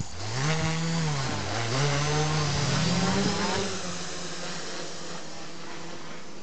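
Small quadcopter's brushless electric motors and propellers buzzing as it takes off, the pitch rising and falling with the throttle. About three and a half seconds in, the sound settles to a steadier, fainter whir as the quad climbs away.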